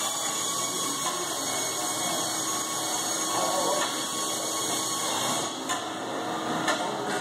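Steady factory-floor machinery noise, a constant hum and hiss with a few faint steady tones, and a couple of short knocks near the end.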